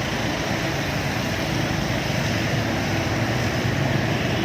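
Heavy diesel construction machinery, such as an excavator or dump truck, running steadily with a constant low engine hum.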